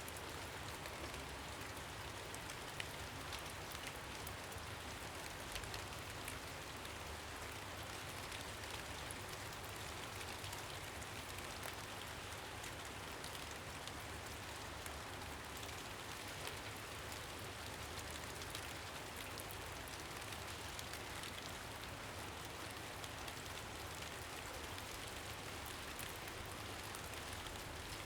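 Steady rain falling, an even hiss with many fine drop patters throughout.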